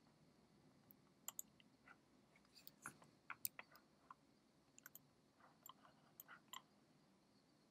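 Faint, irregular computer mouse clicks, some in quick pairs, over otherwise near-silent room tone.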